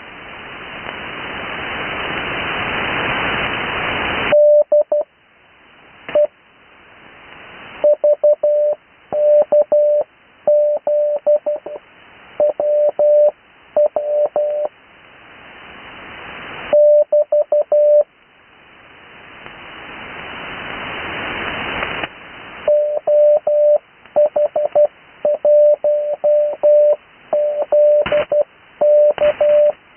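Morse code (CW) sent as a single keyed tone of about 600 Hz, short and long beeps in groups with wide gaps between them, heard through an 80-metre amateur radio receiver. Radio band hiss swells up in the pauses between groups.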